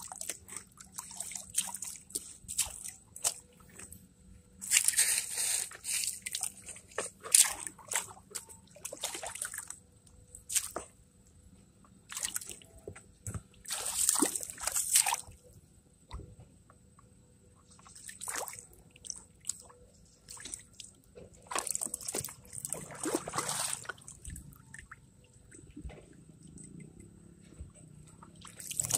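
River water sloshing and splashing in a plastic gold pan as it is dipped and swirled for gold panning, with drips between. The sound comes in irregular bursts, the loudest around five to seven seconds in, at fourteen seconds and at twenty-three seconds.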